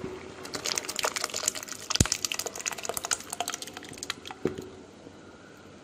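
Thick mashed dal being poured from the cooker into simmering sambar in a clay pot: wet splashing and plopping, with one sharp knock about two seconds in. It tails off after about four and a half seconds.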